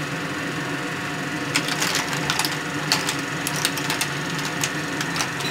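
Undulated surf clams (kerang batik) in their shells clicking and clattering against each other and the pan as they are stirred with a wooden spatula: irregular sharp clicks that get busier from about a second and a half in, over a steady low hum.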